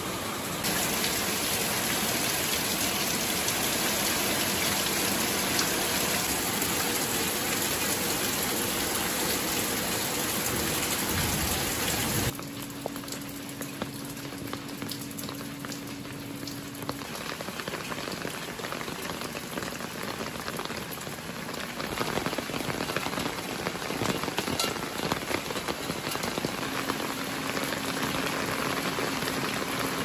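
Heavy rain pattering steadily on leaves and foliage. About twelve seconds in it gives way to lighter, quieter rain with distinct drips that grow busier near the end.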